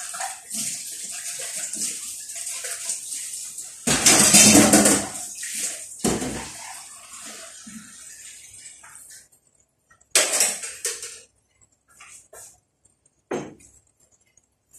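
Covered frying pan of purple cabbage, potatoes and chicken simmering on a gas burner: a steady hiss of steam and sizzling under the glass lid. There is a loud rushing burst about four seconds in and another about six seconds in, then shorter bursts near ten and thirteen seconds, after which the hiss dies down.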